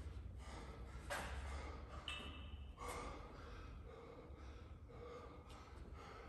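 A winded athlete breathing hard with a few forceful exhales while resting between sets of a high-intensity workout, over a low room hum.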